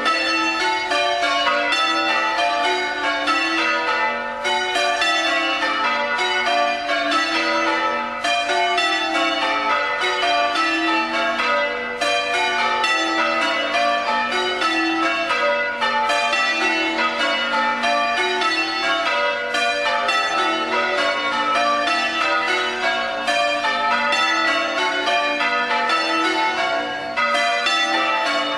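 Church tower bells rung full circle in change ringing, one bell after another in a steady, even stream of strikes, with a small dip in the rhythm about every four seconds.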